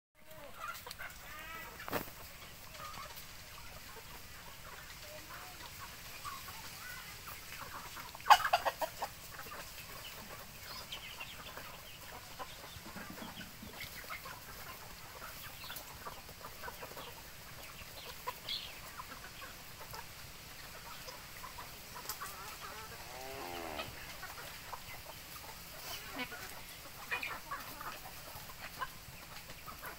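Flock of chickens clucking while they feed, with scattered short calls throughout and one sudden loud sound about eight seconds in.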